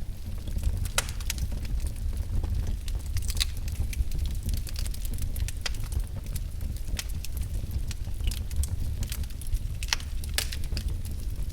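Wood fire in a fireplace crackling: irregular sharp pops and snaps, several a second, over a steady low rumble of the burning.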